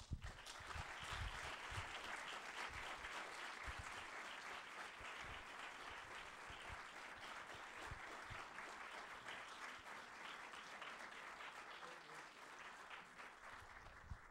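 Audience applauding, a dense steady clapping that eases off near the end.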